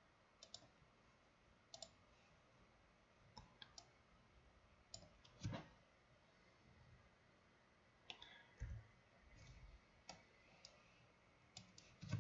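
Faint, scattered clicks of a computer mouse, about a dozen spread over the stretch with near silence between, and a soft low thump about two-thirds of the way through.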